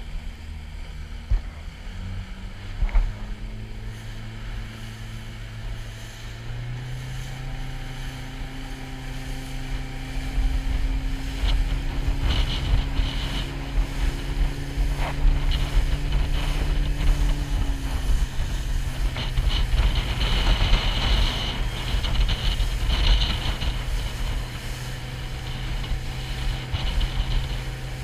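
Small boat's outboard motor running underway, its pitch stepping up about two seconds in and again about six seconds in, then easing back a little after eighteen seconds. Wind on the microphone and water rushing past the hull grow louder through the middle.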